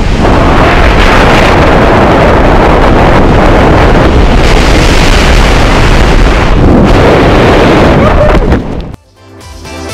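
Loud, steady rush of skydiving wind buffeting the camera's microphone, cutting off suddenly near the end.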